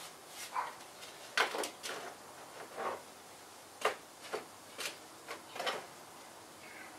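A paper towel being handled, folded and crumpled: a string of short, irregular rustles and light taps, over a faint steady hiss.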